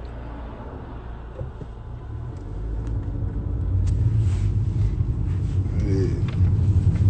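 Low, uneven rumble picked up by a phone's microphone, growing louder about two and a half seconds in.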